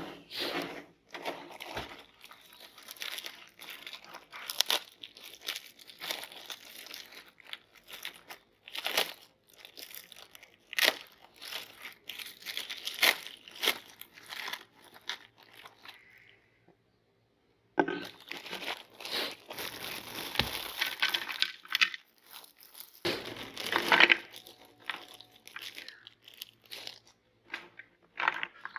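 Meat grinder crushing crunchy cookies: dense, irregular crunching and cracking, with a short break just past the middle.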